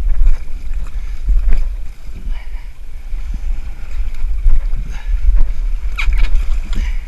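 Wind buffeting the microphone as a heavy, uneven low rumble, with a few knocks and splashes as a gaff brings hooked fish in alongside the boat.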